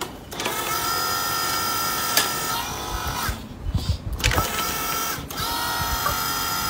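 A remote-control toy excavator's electric motors and gearboxes whining steadily as the arm and bucket move. The whine stops briefly twice, about three and five seconds in, and a few low thuds sound in the first break as the bucket digs into the dirt.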